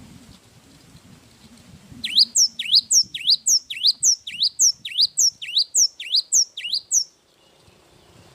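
A gelatik wingko songbird singing a fast run of about a dozen sharp, repeated whistled notes, about two and a half a second. The run starts about two seconds in and stops about seven seconds in.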